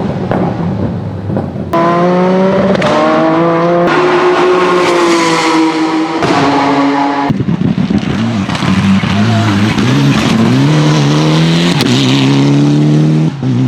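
Race car engines under hard acceleration, the exhaust note climbing in pitch as the revs rise and dropping back between runs, changing abruptly several times.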